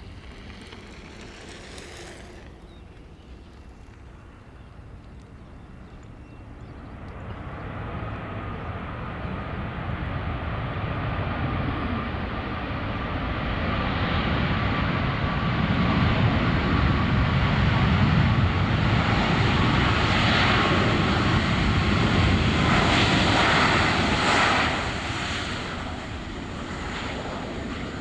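CFM LEAP-1B jet engines of a Boeing 737-8-200 MAX on landing approach, the roar growing steadily louder as the aircraft nears, with a faint whine under it. It drops off sharply a few seconds before the end.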